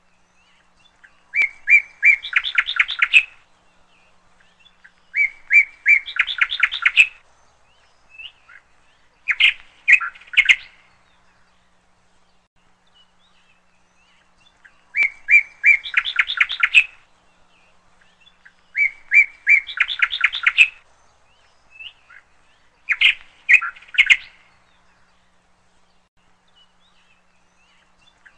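A songbird singing a repeated phrase about six times: a few clear notes run into a fast trill, with a few seconds' pause between phrases.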